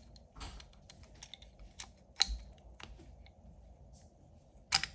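Small metal parts of a rivet gun's front assembly clicking and knocking as they are handled and fitted together by hand: irregular sharp clicks, loudest about two seconds in and again near the end.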